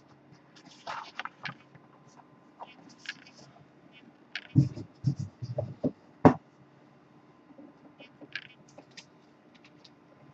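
Laserdisc jackets being handled: light rustles and scrapes of cardboard, then a run of dull thumps about halfway through and one sharp knock a little later, as a jacket is set down and another picked up. A faint steady hum sits underneath.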